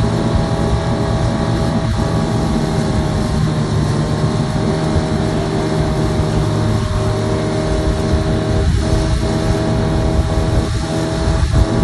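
Motorboat engine running steadily under way while towing a tube, over the constant rush of the wake churning behind the boat.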